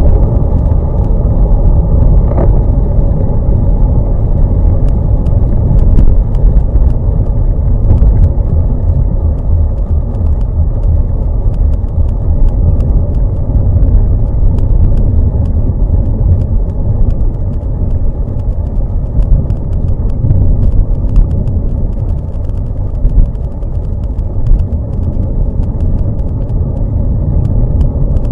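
Steady low rumble of wind buffeting and road noise on a bicycle-mounted camera's microphone while riding on a wet road, with faint scattered ticks.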